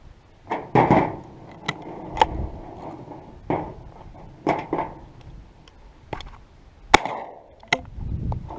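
A single-shot 12-gauge shotgun being handled: about nine separate metallic clicks and knocks at irregular intervals, the sharpest about seven seconds in. No shot is fired.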